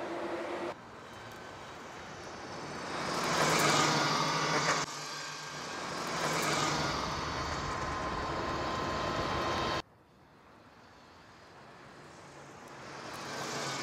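Cupra e-Racer all-electric touring car driving past on track: the whine of its electric drive with tyre and wind noise, swelling up three times as it approaches and passes. The sound cuts off abruptly between passes.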